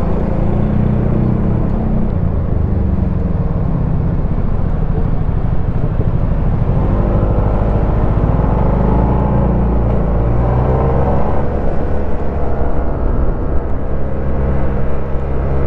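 Yamaha TMAX 560 maxi-scooter on the move, its engine under a heavy rumble of wind on the rider's microphone. For a few seconds around the middle, a pitched engine tone comes through more clearly and shifts in pitch.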